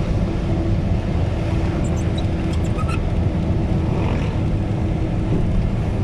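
Steady low rumble of a moving vehicle, with a few faint high ticks about halfway through.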